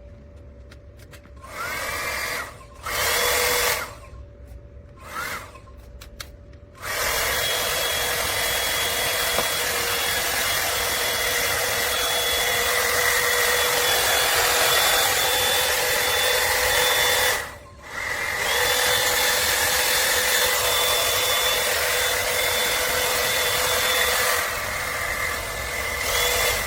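T3 AireBrush hot-air brush blowing: its fan motor is switched on in three short bursts, each starting with a rising whine, then runs steadily with a high whine over the rush of air. It cuts out briefly about two-thirds of the way through, comes back, and changes tone near the end.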